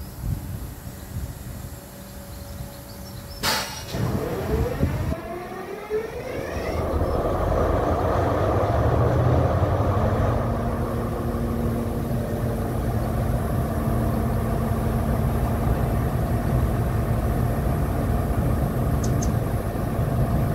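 High Speed Train Class 43 power car diesel engine working up to power: a sharp click about three and a half seconds in, a whine rising in pitch over the next three seconds, then a loud, steady engine note.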